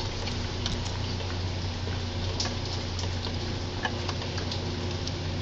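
Faint, scattered light clicks and ticks of hands and tools working at the underside of a riding mower's engine, over a steady low hum.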